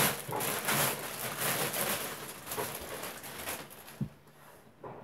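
Plastic wrapping rustling and crinkling as a floor-standing speaker tower is pulled out of it, then a single low thump about four seconds in as the tower is handled.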